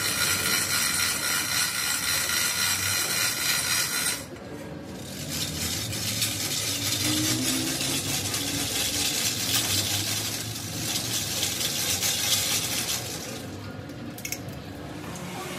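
Metal being machined on a crankshaft: a high whining tone for about four seconds, then ongoing scraping and clinking of metal.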